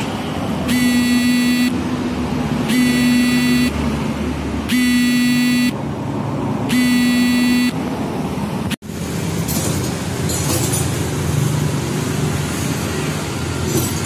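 A horn-like beep sounds four times, each about a second long and two seconds apart. About nine seconds in the sound breaks off abruptly, and a steady background noise follows with no more beeps.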